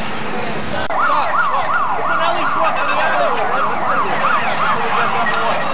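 Emergency-vehicle siren on yelp, its pitch sweeping up and down fast, about three times a second, starting about a second in. A second, lower siren wavers underneath it through the middle.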